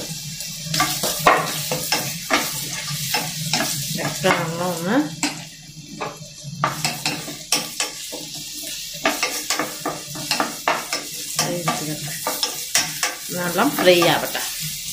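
Sliced onions, green chillies, ginger and garlic sizzling in hot oil in a nonstick pan, while a wooden spatula stirs them with many short scraping strokes against the pan: the aromatics being sautéed for a roast masala.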